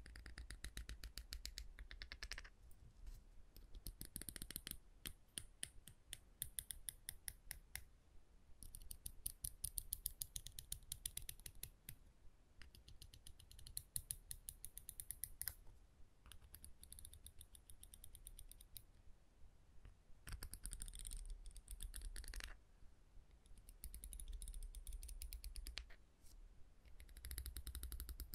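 Quick tapping on small wooden objects, many light clicks in a row, in runs of a few seconds with short pauses between them.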